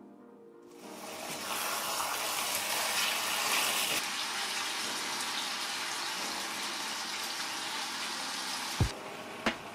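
Water running and splashing in a steady rush that starts about a second in and stops near the end, with soft background music underneath.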